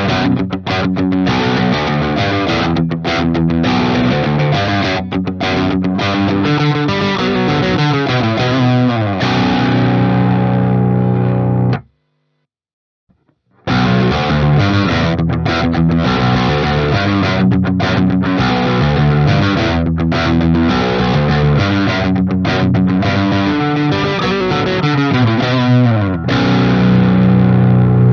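Ibanez Axion Label RGD71ALMS seven-string electric guitar with Fluence Modern active pickups, played with distortion through an amp simulator: a stop-start riff with short, sharp breaks that ends on a ringing chord. After a brief silence about twelve seconds in, the same riff is played again and ends on another held chord.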